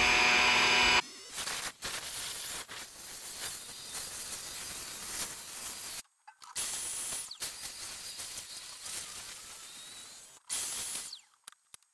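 Small bench-top milling machine's motor whining at high speed for about a second, then an end mill cutting the flats of a metal screw head with a steady, quieter hiss that breaks off suddenly twice.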